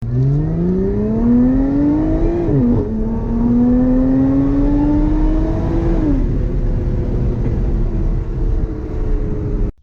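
Car engine accelerating hard, its note climbing and dropping sharply at two upshifts. After the second shift it runs at a fairly steady pitch, then cuts off abruptly near the end.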